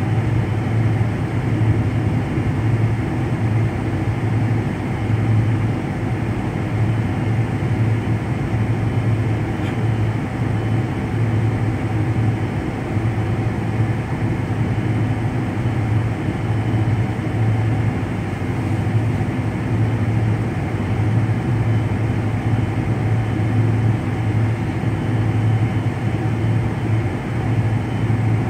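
Jet airliner cabin noise on the ground with the engines at idle: a steady low hum with a slight regular throb, over a constant rushing hiss.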